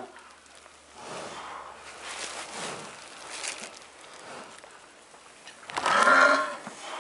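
Heifer in labour breathing hard and straining while the calf is pulled, with several breathy swells and a louder hoarse groan about six seconds in.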